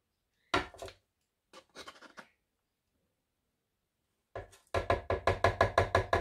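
Metal measuring spoon tapped rapidly against the rim of a blender jar to knock flour off: an even run of about six knocks a second lasting about two seconds near the end. Earlier there is a single knock about half a second in and a few faint clicks.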